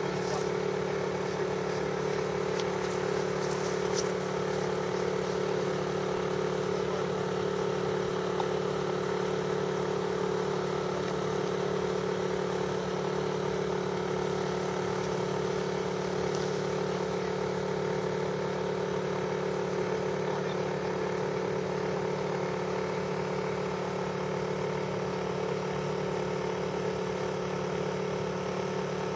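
A steady, unchanging mechanical hum with a low drone.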